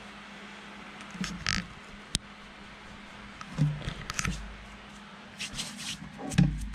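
Hands working loose coconut-fiber substrate and a cork bark hide in a glass tank: a few short scrapes and rustles with light bumps, and a sharp click about two seconds in.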